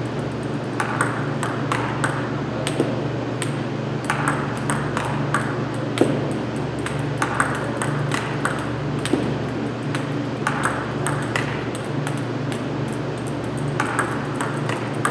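Table tennis ball clicking off bats and table over and over, in quick irregular runs like rallies, over a steady low hum.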